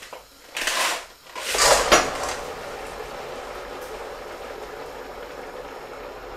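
Dry ice tipped from a plastic bowl into a pot of boiling water: two loud rushing bursts about a second apart as it goes in, then a steady, heavy bubbling hiss as the dry ice sublimates violently in the hot water.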